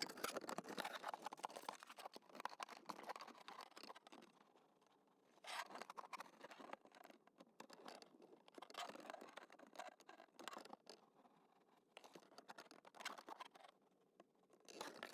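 Faint scratching and clicking in several bursts, with quiet gaps between.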